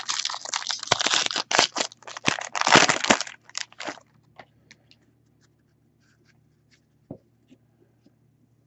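Foil wrapper of a baseball card pack crinkling and tearing open for about four seconds, followed by a few faint ticks and a single light click as the cards are handled.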